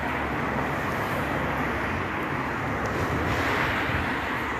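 Dual carriageway traffic going past, a steady rush of tyre and engine noise, with a vehicle passing closer about three seconds in. No beeping from the pelican crossing is heard.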